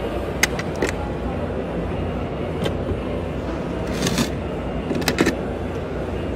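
Steady background hum of a busy exhibition hall, with a few light clicks and knocks from a sample board being handled. The loudest knocks come about five seconds in, as the board is set down on a wooden tabletop.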